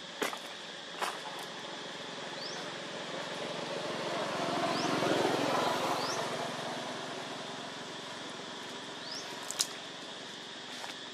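Outdoor ambience: a steady high insect drone with short rising bird chirps and a few sharp clicks. In the middle, a broad rush of noise swells for a few seconds and fades.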